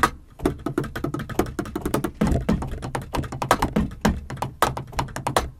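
Drumsticks clacking on the rubber pads and cymbal pads of a Yamaha DTX6K-3X electronic drum kit in a fast run of strokes around the kit, with dull low thuds underneath. This is the dry pad noise of the sticks, not the kit's drum sounds.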